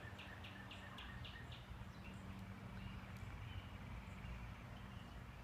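Faint outdoor ambience: a bird giving a quick series of short repeated chirps, about three or four a second, that fade out about two seconds in, over a faint steady low hum.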